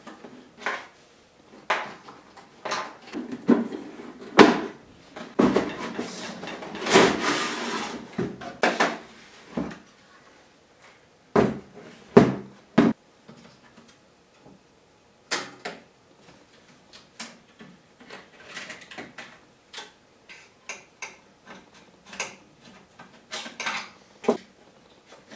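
Agilent 54621A oscilloscope being taken apart by hand: scattered knocks and clicks of its metal case and chassis being handled, with a longer scraping stretch about five to nine seconds in, then sparser small clicks.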